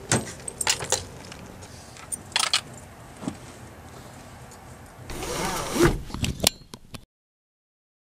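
Keys jangling and the clicks and knocks of someone opening a Buick Century's door and getting into the driver's seat. About five seconds in comes a rustling rush that ends in a heavy thump, then a few clicks, and the sound cuts off abruptly about a second later.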